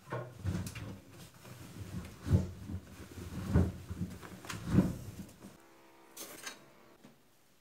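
Bedding being stuffed by hand into a front-loading washing machine's drum: fabric rustling with several dull thumps as it is pushed in. A little after six seconds, the plastic detergent drawer slides open with a short scrape.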